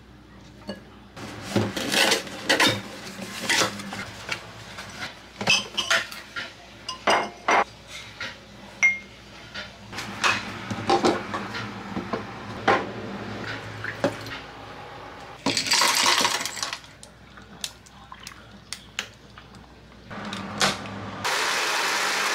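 A metal spoon scrapes and clinks against a ceramic bowl, in irregular knocks, while scooping out papaya flesh. About two-thirds of the way through there is a second-long rush of liquid, milk being poured. Near the end a small Philips personal blender starts and runs steadily, blending papaya milk.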